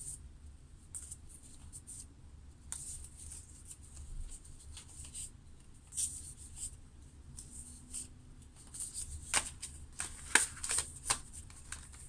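A stack of thick journaling cards handled and shuffled by hand: soft rustling with scattered card-edge clicks, which get busier and louder over the last few seconds.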